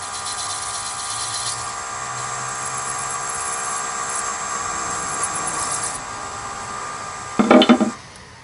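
Nova DVR-XP wood lathe running with a steady whine while a parting tool cuts a groove into a spinning plastic cutting-board disc, the cutting hiss stopping about six seconds in. Near the end comes a brief loud burst of noise, and the lathe's whine stops.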